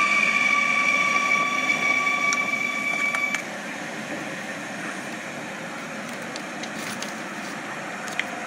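Steady high electric train whine in two tones that cuts off suddenly about three and a half seconds in, leaving a steady hum.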